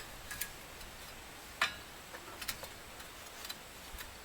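A few scattered light clicks and taps of parts being handled as a cover is fitted back onto the washing machine, the clearest about one and a half seconds in.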